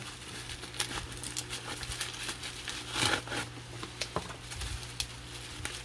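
Bubble wrap being handled and pulled apart, irregular crinkling and rustling with a few louder crackles, as a small parcel is unwrapped.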